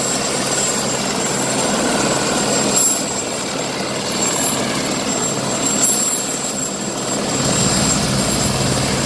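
Helicopter engine and rotors running steadily on the ground just after start-up, with a steady high whine over the noise, as the engine warms up.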